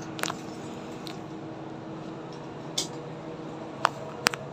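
A handful of short, sharp clicks and knocks as a tape measure is handled against the wooden planking inside a boat's hold, over a steady low hum.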